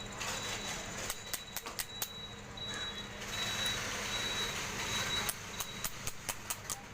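Sharp metal taps from a hammer driving a new ball bearing onto the shaft of a window AC fan motor: an irregular run of blows, a rougher noisy stretch, then quicker, evenly spaced taps near the end.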